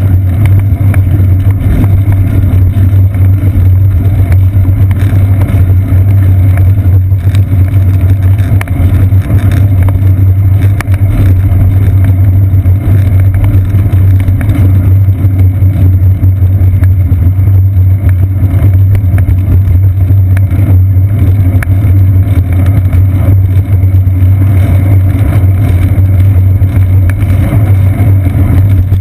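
Loud, steady low rumble of a bicycle rolling along a paved path, picked up by a seat-post-mounted GoPro Hero 2 as wind and road vibration.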